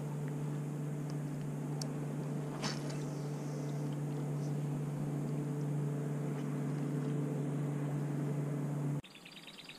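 Steady low mechanical hum from a small motor, even in pitch, that cuts off suddenly about nine seconds in, with one short sharp sound near three seconds in.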